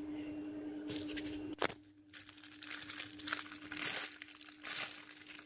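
Irregular crinkling and rustling of plastic being handled, starting about two seconds in after a sharp click, over a steady low hum.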